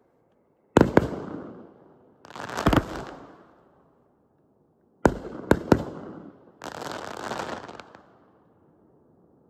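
Full Blown 500-gram consumer fireworks cake firing. Sharp bangs come about a second in and again around five seconds, each followed by a spread of crackling from the gold crackle stars. The crackling dies down near the end.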